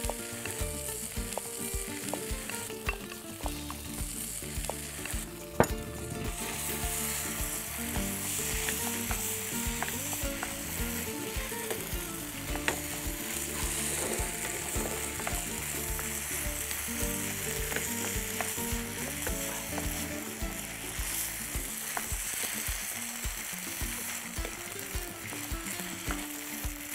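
Noodles with egg and shrimp sizzling as they fry in a non-stick wok, stirred and tossed with a wooden spatula that scrapes and clicks against the pan. A sharp knock of the spatula comes about five and a half seconds in, and the sizzle grows louder just after.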